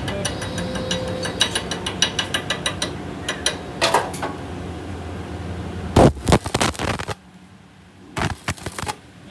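A machine's motor hums steadily under a rapid series of metallic clicks and a few louder knocks. The hum stops suddenly about seven seconds in, and a couple of knocks follow.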